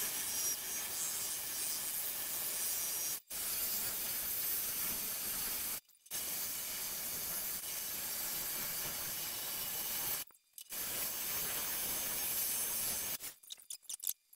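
A 1.5-inch diamond-coated hole saw grinding through aquarium glass under a flow of water: a steady, hissy grind with three short breaks, stopping shortly before the end. The bit is dull, so it cuts slowly.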